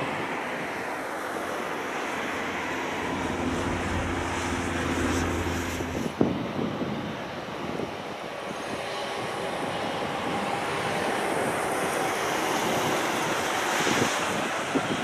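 Airbus A380 jet engines running on the runway, a steady rushing roar with wind buffeting the microphone. There are short thumps about six seconds in and near the end.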